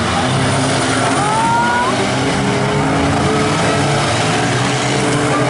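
Several compact cars' engines running together in a demolition derby race, a loud, steady mix of engine sound and noise, with a few brief high squeals in the first couple of seconds.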